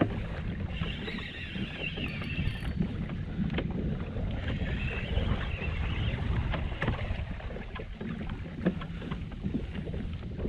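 Wind buffeting the microphone on a kayak, a steady low rumble, with scattered light clicks and knocks and a faint wavering high tone that comes and goes.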